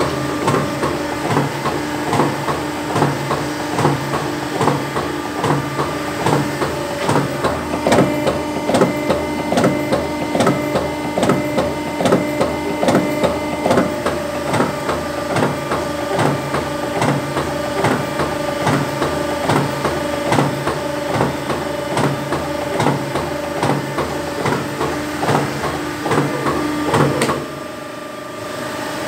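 20-ton hydraulic jewellery press stamping chain in its die, the ram cycling in a quick, even rhythm over the steady hum of its hydraulic pump. The stamping stops abruptly about 27 seconds in, leaving the pump humming on its own.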